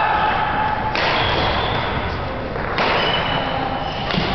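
Badminton play in a busy sports hall: thuds of rackets and feet, with sudden short squeaks about a second in and again near three seconds, over steady hall noise.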